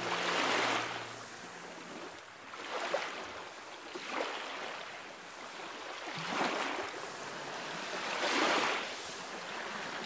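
Small sea waves washing in over rocks into a shallow rock pool and draining back, in surges every two to three seconds.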